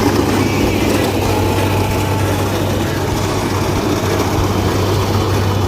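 Rice combine harvester's diesel engine running steadily with a constant low hum and the noise of the machine working.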